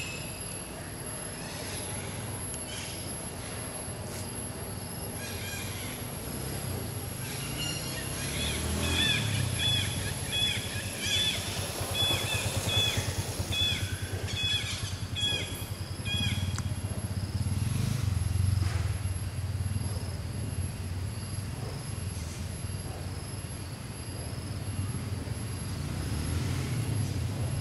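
Outdoor ambience dominated by a vehicle engine rumbling past on a nearby road, swelling twice. In the middle, a bird calls a run of short chirps about twice a second for some seven seconds, over a thin steady high whine.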